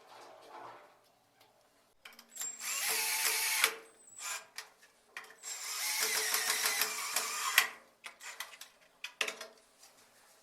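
Power drill running in two bursts, about a second and a half and then two seconds long, each starting and stopping sharply, followed by a few light knocks.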